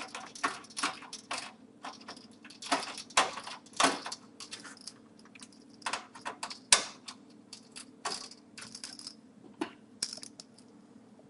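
Irregular small metallic clicks and ticks of a magnetic Phillips screwdriver and screws as a motherboard screw is set and driven into a standoff. The clicks stop shortly before the end.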